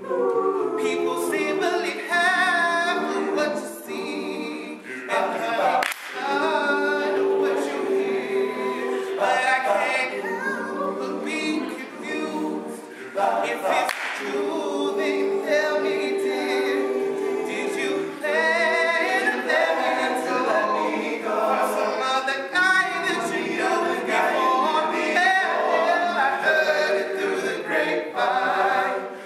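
All-male a cappella group singing live: a lead voice over backing voices that hold long sustained chords, with no instruments.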